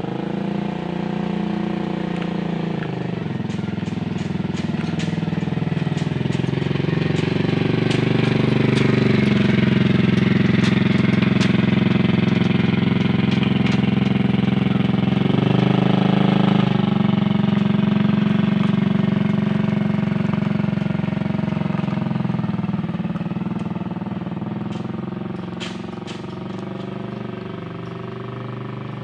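An engine running steadily with a low hum. It starts abruptly, grows louder toward the middle, shifts briefly just past halfway and fades again near the end.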